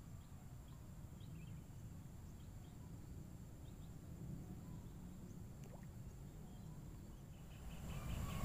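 Quiet riverbank ambience: a low steady rumble with a few faint, short high chirps scattered through it, growing louder in the last second.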